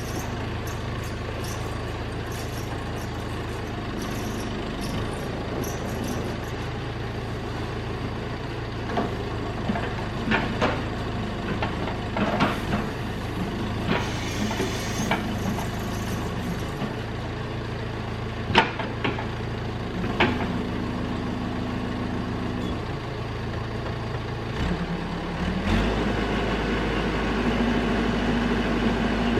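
Caterpillar backhoe's diesel engine running steadily, with several sharp clanks through the middle. Near the end the engine note changes and gets louder as the engine picks up speed.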